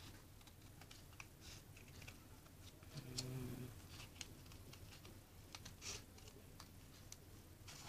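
Small scissors snipping through thick sketchbook paper: faint, short cuts at irregular intervals as the blades work slowly around a curved eye hole. About three seconds in, a brief low hum.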